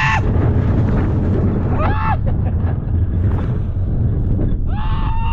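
Loud, steady wind rumble buffeting the phone's microphone on a moving, spinning amusement ride. Over it come a brief high yelp about two seconds in and a held high cry near the end.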